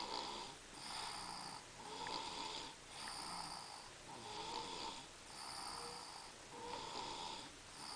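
A sleeping person snoring in a steady rhythm, about one breath a second, with a rasping sound on each breath. The snoring is heavier than usual because of strep throat.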